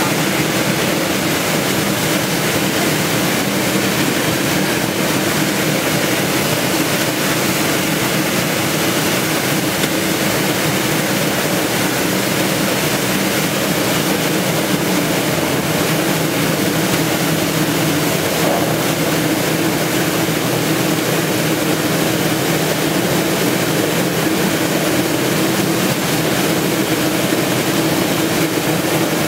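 Stainless steel rotary drum ginger washing machine running: water jets spraying inside the turning drum and water pouring out into the trough, over a steady low machine hum.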